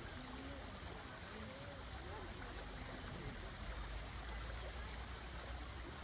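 Steady rush of running water, like a small stream, with faint distant human voices in the first couple of seconds.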